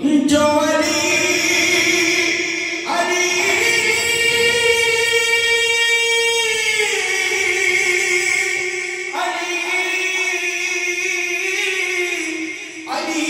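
A man singing a Punjabi naat unaccompanied, in long drawn-out phrases, the longest rising to a high held note for several seconds before sliding back down.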